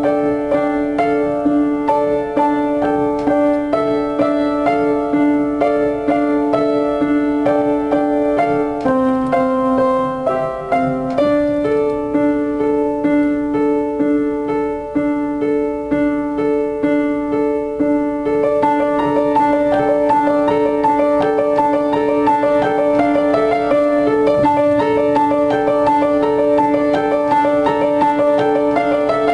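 Solo upright piano played: a quick, flowing stream of repeated notes, mostly in the middle register, that grows denser and more even about two-thirds of the way in.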